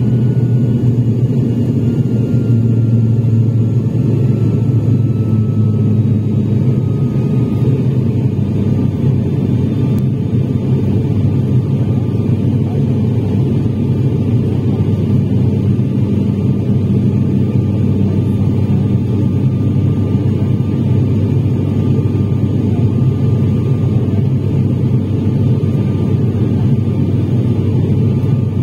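Steady, loud cabin drone of an ATR 72's turboprop engines and propellers in the climb, deep and even, heard from a window seat beside the propeller. A faint whine runs through it and sinks slowly in pitch over the first several seconds.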